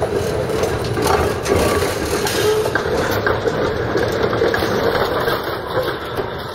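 PCC streetcar rolling past close by: a steady rumble of wheels on the rails with a humming tone and scattered clicks.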